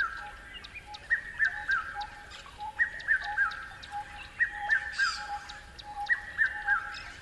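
Birds calling: one repeats a quick three-note phrase about every second and a half, over a steady run of short lower notes, about two a second.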